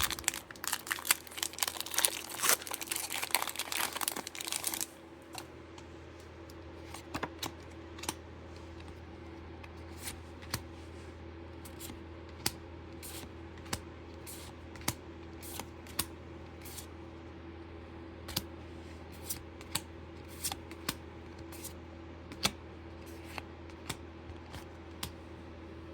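Booster pack wrapper crinkling and tearing open for about the first five seconds, then scattered light clicks and taps as the trading cards are handled, over a steady low hum.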